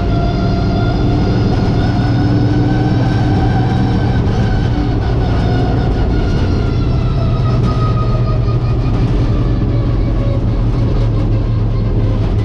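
Late model race car's V8 engine heard from inside the cockpit, running steadily under power, its pitch drifting slightly up and then easing lower over the last few seconds.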